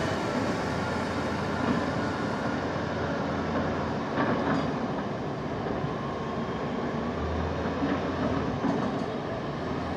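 Kalmar container forklifts' diesel engines running with a steady low rumble, with a few clanks from the handlers, the sharpest about four seconds in.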